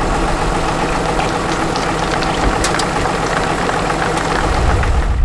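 Tatra 8x8 trial truck's diesel engine idling steadily, with a few light clicks and knocks over it about halfway through; the low rumble grows stronger near the end.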